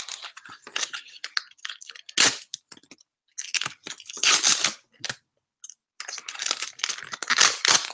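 Foil trading-card pack being torn open and crinkled in the hands, in irregular bursts of crackling. It is loudest briefly about two seconds in, again just after four seconds, and through most of the last two seconds.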